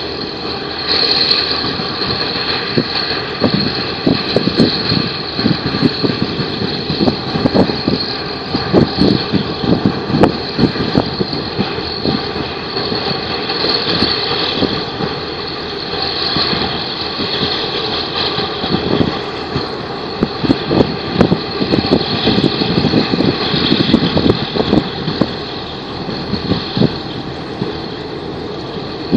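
A boat engine running steadily at an even pitch, with irregular low thumps throughout.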